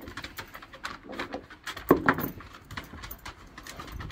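A basset hound's claws clicking and tapping on wooden porch deck boards as she scurries about, with one louder sharp sound about two seconds in.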